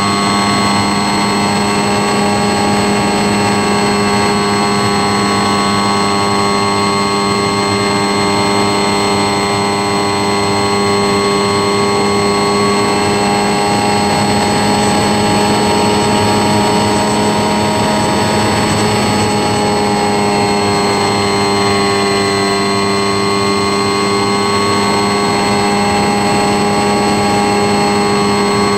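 Motor and propeller of a tailless radio-controlled plane running steadily at cruise, heard up close from the plane's onboard camera, with a slight shift in pitch about two-thirds of the way through.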